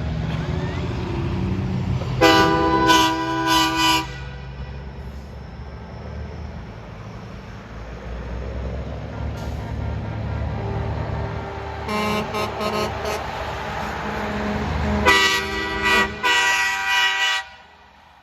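Trucks passing with their engines running, blowing horns in repeated blasts. There is a cluster of loud blasts about two seconds in, a few short toots in the middle, and another cluster of blasts near the end.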